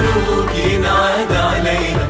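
A song playing: a singing voice over an instrumental backing, steady and fairly loud.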